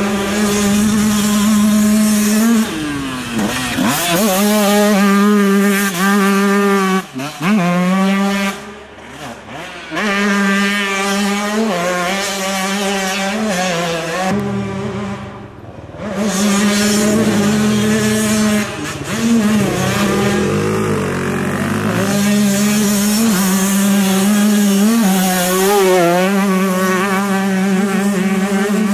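Two-stroke motocross bike engines running at high revs, holding a steady high pitch for seconds at a time. The revs drop sharply about three and seven seconds in, and the sound eases briefly around nine and fifteen seconds in before the engines rev back up.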